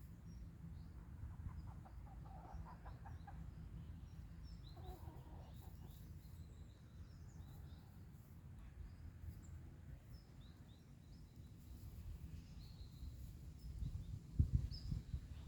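Small birds chirping over and over, with a faint chicken call a couple of seconds in and another shorter one about five seconds in, over a low rumble. A loud low thump near the end.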